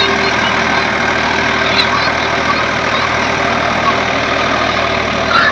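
Ford 3610 tractor engine running steadily.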